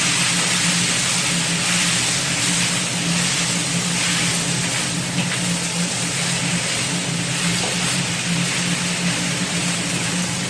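Cabbage, carrot and white beech mushrooms sizzling in a wok on high heat as they are stir-fried with a wooden spatula, over a steady low hum from the range hood fan.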